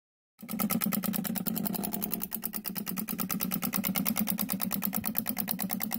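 A small machine running, a steady hum with a rapid, even clatter of about ten ticks a second, starting about half a second in.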